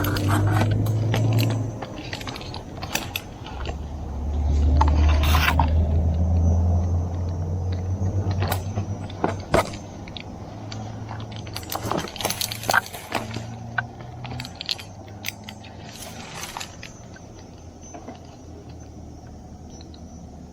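Metal climbing gear clinking and scraping in scattered irregular clicks as a climber works his way up a coconut trunk, over a low rumble that is loudest near the start and again a few seconds in, then fades.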